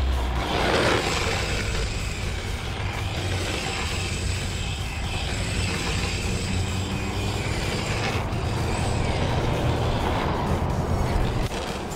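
Yokomo YD-2 SX III 1/10 electric RC drift car running on asphalt: the electric motor's high whine over the hard drift tyres scrubbing and sliding as the car drifts past and away.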